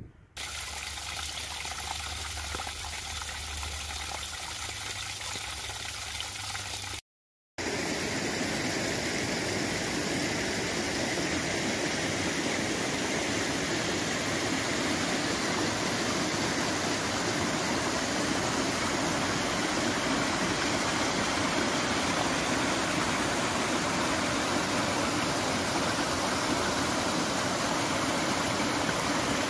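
Steady rushing of a shallow, rocky stream as water pours over and around stones. For the first several seconds a low rumble lies under it, and about seven seconds in the sound cuts out for half a second before the water resumes.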